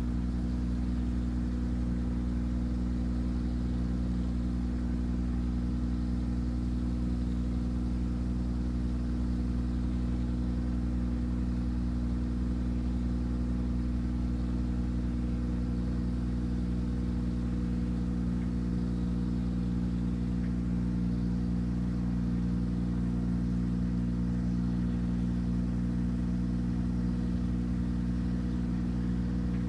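Engine of a render-spraying machine running steadily at one speed, pumping render up the hose to the spray gun.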